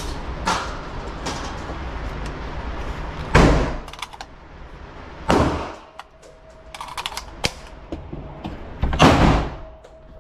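Three loud bangs with short echoing tails, spaced about two and four seconds apart, among fainter clicks and knocks.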